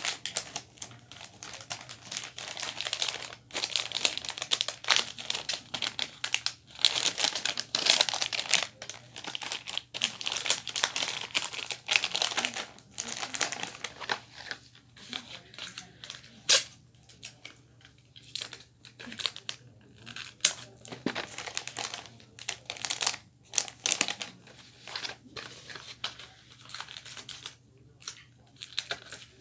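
Gift wrapping paper crinkling and rustling as it is handled and folded around a present, with irregular sharp crackles and tearing sounds; the single loudest snap comes about halfway through.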